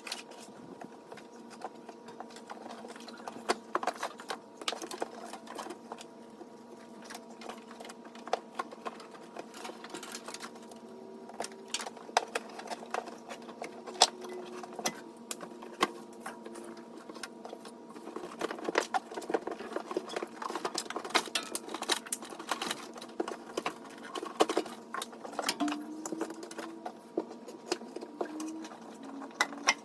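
Dense, rapid clicking and clatter of hands and tools working on a car's wiring, sped up, over a steady low hum.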